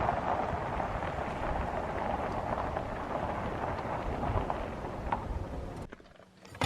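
Steady road and engine noise inside a moving car, easing off gradually and dropping away about six seconds in.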